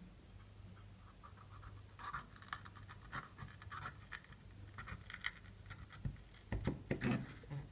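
Kitchen knife cutting a red bell pepper on a plastic cutting board: a string of faint, crisp cuts and clicks starting about two seconds in, with a few duller knocks of the blade on the board near the end.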